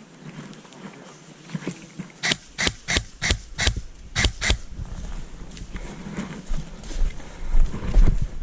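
A quick, uneven string of about nine sharp cracks, airsoft gun shots fired one by one, followed from about halfway on by heavy footsteps thumping, growing louder near the end.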